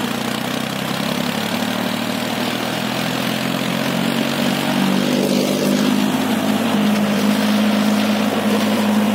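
HMT 3522 tractor's diesel engine running steadily as the tractor drives across grass, growing slightly louder toward the end.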